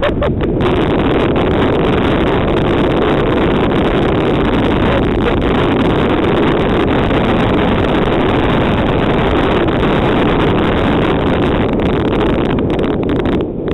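Steady rushing rumble of a fast sledge descent: wind buffeting the microphone and the wooden sledge's runners scraping over packed snow.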